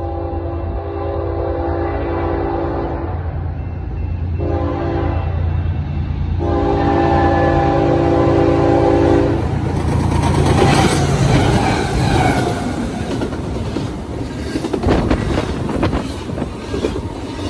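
Union Pacific freight locomotive's air horn sounding a chord in three blasts, long, short, long, over the low drone of its diesel engines as the train approaches. About ten seconds in the locomotives and double-stack container cars rush past close by, with rolling clatter and sharp clicks of wheels over the rail joints.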